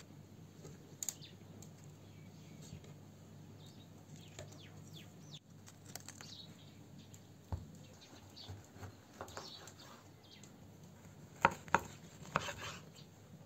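Kitchen knife cutting an orange on a wooden cutting board: three sharp knocks of the blade against the board close together near the end, after soft rustling and light handling of leaves and fruit.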